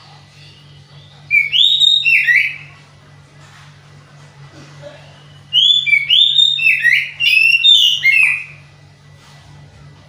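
Caged male oriental magpie-robin (kacer) singing two phrases of fast whistled notes that slide up and down, the second phrase longer. The keeper presents this as the song of a bird in full voice but still short of breeding drive, whose song comes out monotonous.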